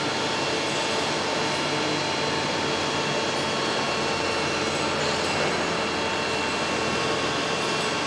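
Steady machinery din of an engine assembly plant floor: a constant hum with several steady tones over an even hiss.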